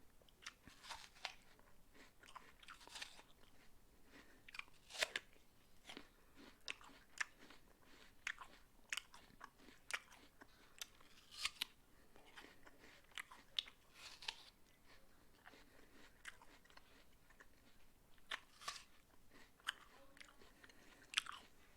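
Person chewing a mouthful of raw apple, with many short wet crunches at an irregular pace.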